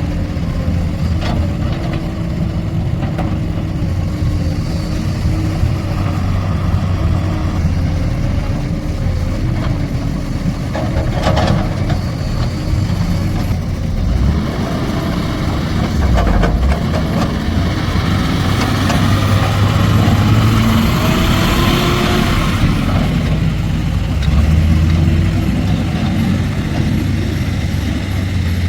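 Diesel engine of a JCB backhoe loader running steadily while loading mud, with a few clanks along the way, louder for a while after the middle.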